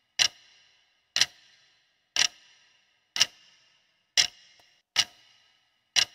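Countdown-timer clock-tick sound effect: seven sharp ticks, about one a second, each with a brief ringing tail.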